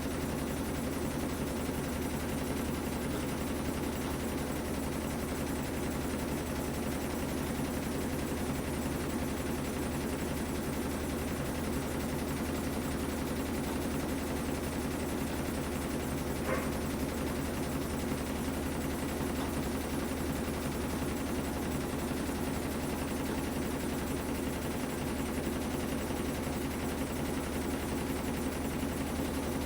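Whirlpool top-loading washing machine running steadily in its drain-and-spin cycle, an even motor hum with a few constant tones. A single short tick about halfway through.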